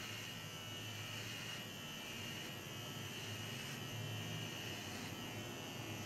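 Electric hair clipper buzzing steadily as it is run over short stubble on a shaved scalp.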